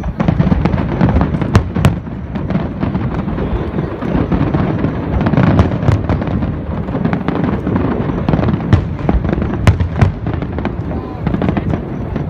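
Aerial fireworks display: a dense, near-continuous barrage of bangs and crackling bursts over a low rolling rumble.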